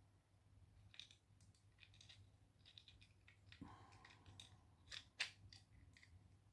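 Faint, irregular small clicks and taps of hard parts being handled, a dozen or so, with a brief ringing tone a little past three and a half seconds in and the sharpest click about five seconds in.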